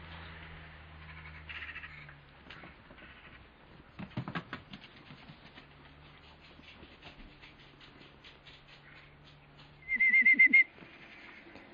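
A high, rapidly warbling whistle-like call about ten seconds in, lasting well under a second, after faint scattered ticks and a short cluster of taps about four seconds in.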